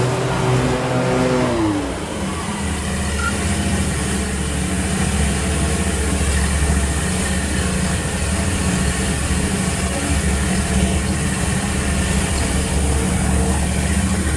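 Stand-on mower engine running; a little under two seconds in its pitch slides down, and it then runs on at a steady lower hum.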